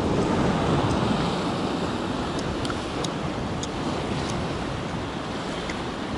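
Ocean surf washing and churning against the rocks of a rocky shoreline, a steady rush.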